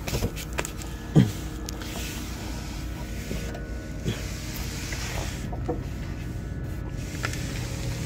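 Steady low hum of a smoke machine's pump running during a vacuum-leak smoke test, with scattered clicks and knocks of handling under the car; the loudest is a sharp knock about a second in.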